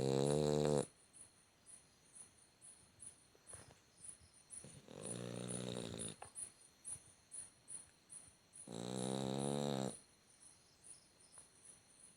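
Dog snoring in its sleep: three long, pitched snores about four seconds apart, each lasting about a second.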